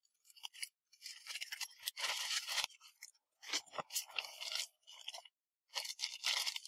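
Plastic packaging crinkling and rustling by hand in a few separate bursts, as a postal mailer bag and a clear inner plastic bag are unwrapped and pulled open.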